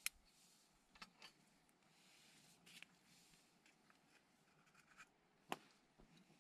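Near silence broken by a few small, sharp clicks and taps from handling camp gear while a small lantern is lit and set up, the loudest about five and a half seconds in.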